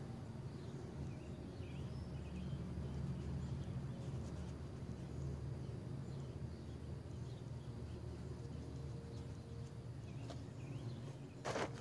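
Outdoor background: a steady low rumble with faint, scattered bird chirps. Near the end come a few sharp scuffs and rustles of someone approaching.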